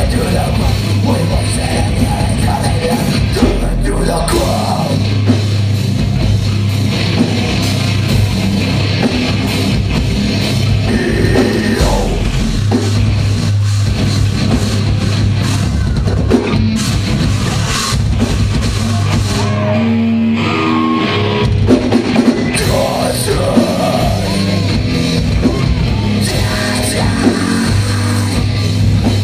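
Metalcore band playing live: loud distorted guitars over a pounding drum kit. About two-thirds of the way through, the low end briefly drops back under a stepped guitar line.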